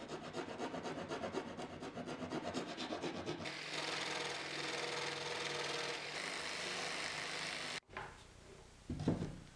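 A hand rasp filing the edge of a hole in a plywood board with quick rhythmic strokes. About three and a half seconds in, a jigsaw takes over, running steadily as it cuts the plywood, and it cuts off suddenly about eight seconds in. A couple of knocks follow near the end as the electric hand planer is set into the hole.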